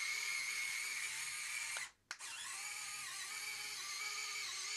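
CaDA micromotor driving a brick-built COBI BR 52 locomotive's wheels through a small gear, running with a steady high-pitched electric whine. It cuts out briefly about two seconds in, then runs on.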